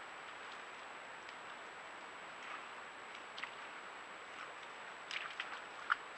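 A deer's hooves stepping on dry soil, mud and twigs: scattered soft ticks and crackles, bunched together near the end, over the steady hiss of a trail camera's microphone.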